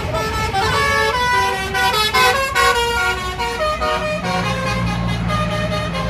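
Tour bus 'telolet basuri' melody horn playing a quick tune, its notes changing several times a second, over passing traffic. A low steady tone joins about four seconds in.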